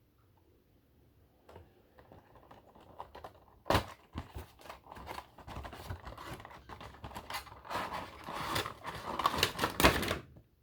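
Packaging being handled and opened by hand: a sharp click, then a run of rapid clicks, scrapes and tearing rustles that gets busier and louder toward the end and stops suddenly.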